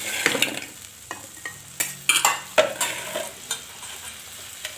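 Metal spatula scraping and knocking against a metal kadai as a brinjal curry is stirred, with several sharp scrapes in the first three and a half seconds. Under it a steady sizzle of the curry cooking in the pan.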